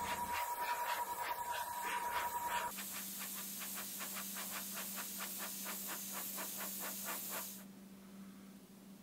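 Gravity-feed airbrush hissing as compressed air sprays paint, pulsing rapidly and evenly, with a thin steady whistle over the first two or three seconds. The spray cuts off about seven and a half seconds in, leaving a faint steady hum.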